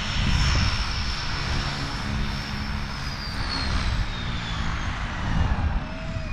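Propeller aircraft engine droning overhead, its pitch starting to fall about halfway through as it passes.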